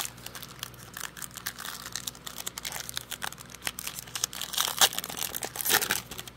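Foil wrapper of a Panini Prizm basketball card pack being torn open and crinkled by hand: a dense crackle that grows loudest about four and a half seconds in.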